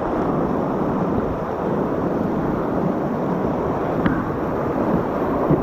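Steady rushing of river whitewater through a rapid, with wind buffeting the microphone.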